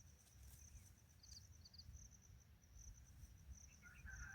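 Near silence with a faint, high-pitched insect chirring that pulses rapidly and evenly, over a faint low rumble.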